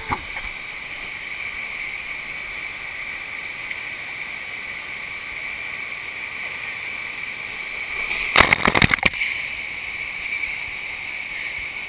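Steady rush of pumped water pouring over an artificial sheet-wave ride. About two-thirds of the way through there is a short clatter of several sharp hits, the loudest sound here.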